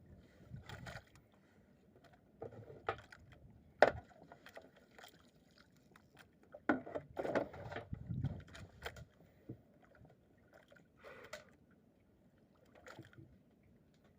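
Fishing gear and the catch being handled: scattered scrapes, knocks and rustles, with a sharp click about four seconds in and a busier stretch around the middle.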